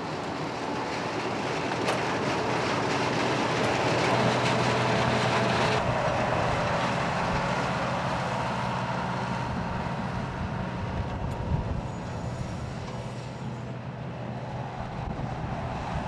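A 1990 Riecam RBM 230 sugar beet harvester with its 9.5-litre air-cooled six-cylinder Deutz engine running while its elevator discharges beet into a trailer, mixed with the engine of a John Deere 6210 tractor driving alongside. A steady engine and machinery hum that grows louder over the first few seconds and then eases off.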